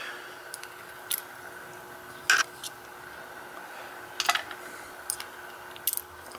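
Small metal lock pins and tools clicking and tapping against a hard surface as the pins are handled and laid out, in irregular single clicks with a faint steady hum underneath.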